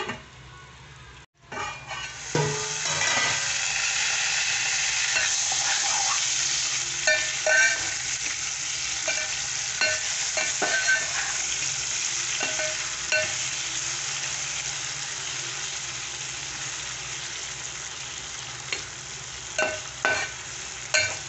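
Brinjal (eggplant) pieces sizzling as they fry in an aluminium pot while a metal spoon stirs them, with scrapes and clinks of the spoon against the pot. The sizzle comes in loud about two seconds in and slowly dies down.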